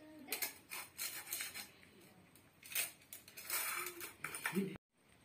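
Dishes and cutlery clinking and scraping during a meal of rice and fried fish: a scatter of short knocks and scrapes, with a brief vocal sound near the end.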